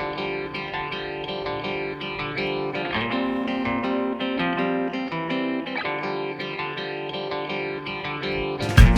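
Background music led by guitar, with a steady pulse of plucked notes. Just before the end it jumps to a much louder, fuller passage with heavy bass and regular hits.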